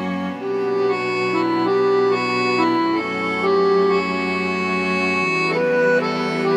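Accordion playing a tango melody, its notes moving about every half second, over sustained chords from a string quartet of violins, viola and cello; the harmony changes every two to three seconds.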